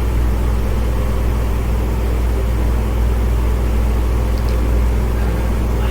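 Steady, loud low rumble with no change in level.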